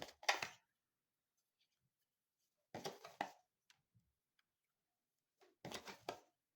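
A deck of cards being shuffled by hand: three short rustling bursts about three seconds apart.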